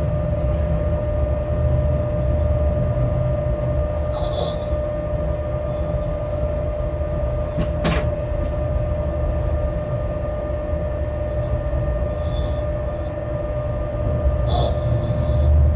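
Inside a locomotive cab during a slow shunting move: steady low rumble of the running loco with a constant hum, a single sharp click about halfway through, and a few brief high-pitched sounds near the start, around two-thirds of the way in and near the end.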